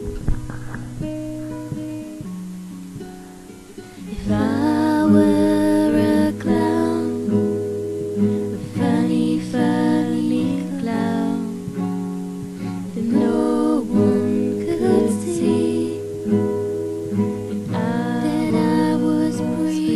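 A song with a strummed acoustic guitar, quieter at first, then joined about four seconds in by a girl's singing voice over the guitar.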